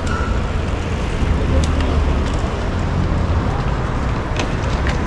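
Strong wind buffeting the microphone, a steady rumble over the general noise of the city, with a few faint ticks.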